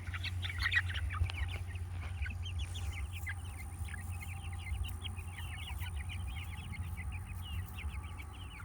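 A flock of young Jersey Giant chickens peeping, with many short high chirps overlapping without a break, over a low steady rumble.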